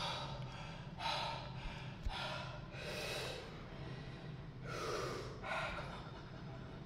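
A man breathing heavily in and out, about six deep breaths in a row, as he readies himself for a heavy barbell squat set.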